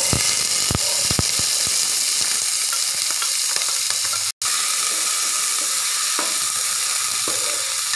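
Chopped onions hitting hot coconut oil with ginger and garlic, setting off a loud sizzle at once, then frying steadily as they are stirred. There are several light knocks in the first two seconds and a brief break in the sound about four seconds in.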